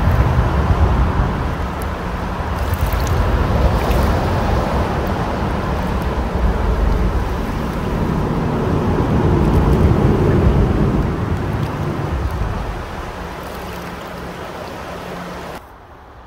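Shallow river rushing over rocks, a steady loud wash of water with wind rumbling on the microphone. It drops away suddenly near the end.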